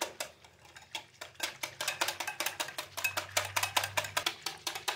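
Stainless-steel wire whisk beating a cocoa, cornflour and milk-powder mix into milk, its wires striking the sides of the bowl in rapid, even clicks that come thicker after about a second.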